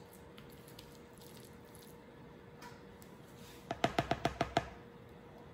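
A serving spoon tapped about eight times in quick succession against the rim of a stoneware pie dish, each tap ringing briefly, knocking off the last of the pot pie filling. Before the taps, only faint room tone.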